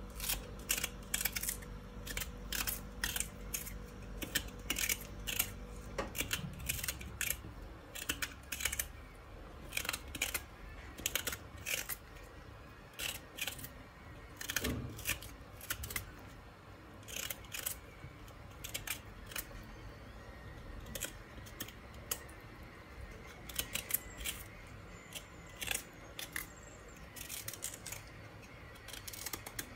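Small kitchen knife scraping and cutting the skin off a knobbly Jerusalem artichoke against a wooden cutting board: a run of short, irregular scrapes and clicks, about one or two a second.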